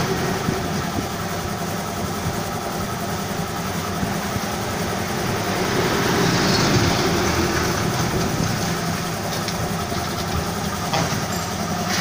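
A steady mechanical rumble, like an engine or machine running, with a few light clicks near the end.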